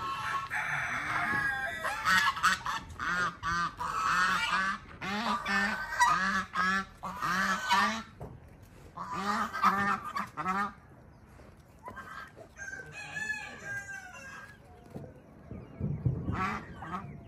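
Two white domestic geese honking over and over in a quick run of short calls. The calls thin out and grow softer after about eleven seconds.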